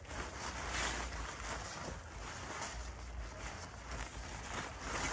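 Crinkling and rustling of a silver foil sheet being unfolded and spread out, in irregular bursts, over a steady low rumble.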